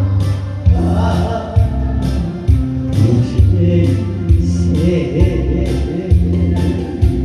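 Backing music for a Korean popular song (trot-style yuhaengga), with a steady beat, a strong bass line and a melody line that wavers with vibrato. A rising glide comes in near the end.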